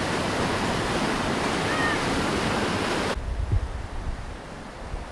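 River whitewater rushing over rock ledges at a waterfall, a loud steady rush that drops abruptly to a quieter rush about three seconds in. Wind buffets the microphone with a few low thumps after the drop.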